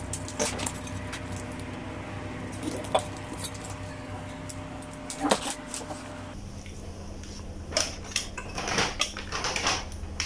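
Light clicks, knocks and rattles of the room heater's metal and plastic parts and wires being handled and refitted, over a steady low hum that shifts about halfway through. The clicks come closer together near the end.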